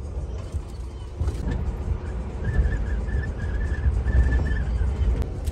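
A car's engine running, a steady low rumble, with a faint broken high tone for about two seconds in the middle.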